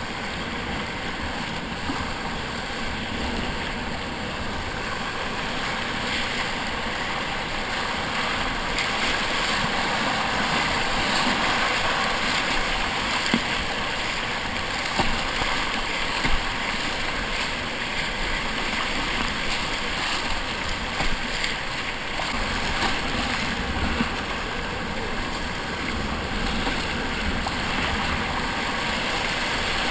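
Rushing whitewater of a river rapid heard from inside a kayak, a steady roar of moving water with a few brief splashes from paddle strokes.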